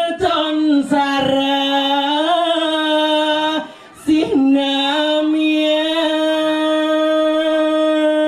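A woman singing unaccompanied through a microphone. She sings long held notes, ornamented where each phrase begins, with one short break for breath about four seconds in.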